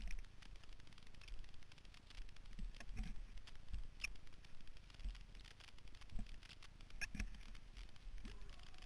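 Faint crackling and rustling of boots and handling on twigs and forest-floor litter, with a few louder knocks, heard through a helmet-mounted microphone with a low wind rumble underneath. No engine is running: the dirt bike lies on its side.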